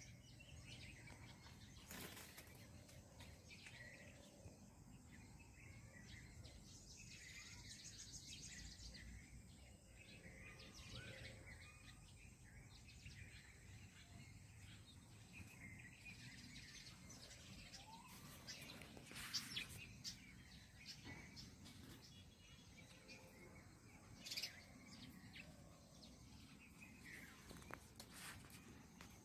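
Faint rural outdoor background with scattered high chirping calls. A few short sharp clicks or rustles, the loudest about two-thirds of the way through.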